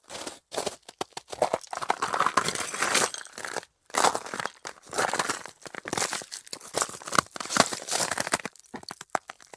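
Footsteps in winter boots on dry, cold snow: each step a squeaky crunch as the packed snow compresses, in a steady walking rhythm with a few brief pauses.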